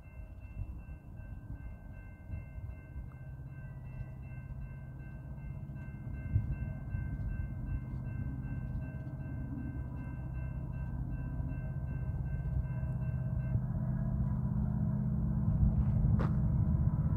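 Two Union Pacific SD70M diesel-electric locomotives, each with an EMD 710 two-stroke V16, approaching under power: a low engine drone and rumble that grows steadily louder as they near.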